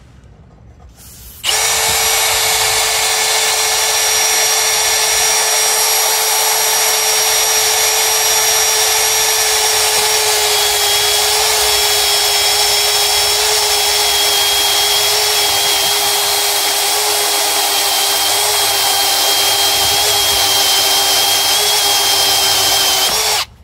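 Milwaukee cordless drill on first speed driving an Irwin cobalt step drill bit through 4 mm steel channel: a steady motor whine with the bit cutting steel. It starts about a second and a half in, runs evenly for about 21 seconds, and stops abruptly near the end.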